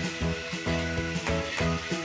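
Background music with a steady beat under held chords.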